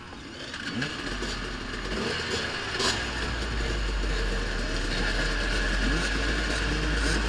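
Many dirt bike engines idling and blipping their throttles all around at once, overlapping rising and falling revs that grow louder. A steady deep engine rumble close by joins about a second in, and there is one sharp clack about three seconds in.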